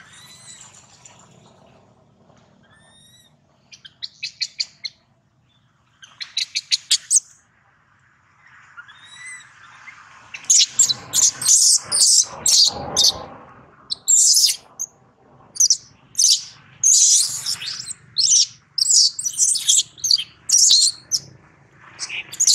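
Baby macaque crying: soft squeaks at first, then from about halfway through a long run of loud, repeated high-pitched shrieks, the distress screams of an infant.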